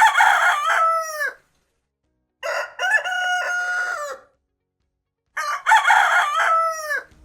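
Rooster crowing three times, cock-a-doodle-doo, with pauses of about a second between the crows.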